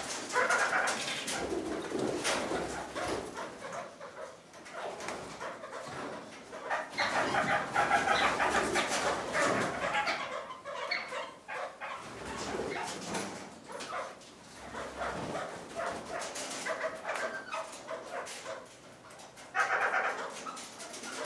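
Kakariki (red-crowned parakeets) chattering in three main bursts, near the start, in the middle and near the end, with small clicks in between.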